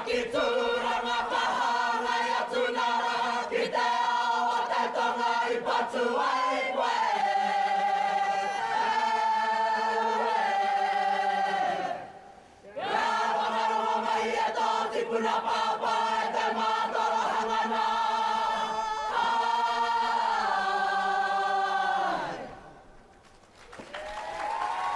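A kapa haka group of men and women sing in harmony, holding long chords, with a brief breath break about halfway. The singing ends a few seconds before the close, and crowd applause begins right at the end.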